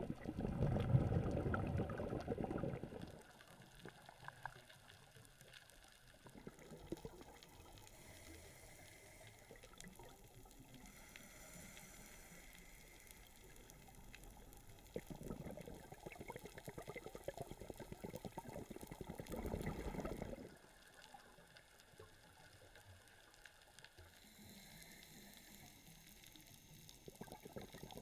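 Underwater sound of a scuba diver exhaling through the regulator: two rushes of bubbles, one lasting about three seconds at the start and a longer one from about fifteen to twenty seconds in. Between them there is only a faint underwater hiss with light crackling.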